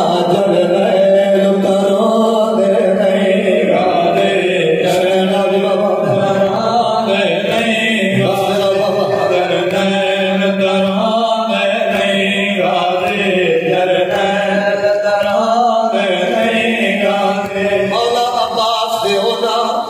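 Men chanting a Saraiki noha, a Muharram lament, into microphones: several voices sing together in long held lines, with a low note sustained steadily underneath.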